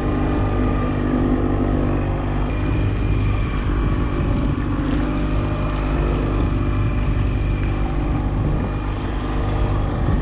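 Boat motor running steadily at trolling speed: a continuous, even engine drone.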